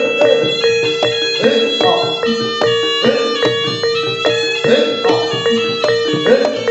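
Live jaranan gamelan music: regular drum strokes and struck, ringing metal gongs over a steady held note from a reedy wind instrument, typical of the slompret shawm used in jaranan.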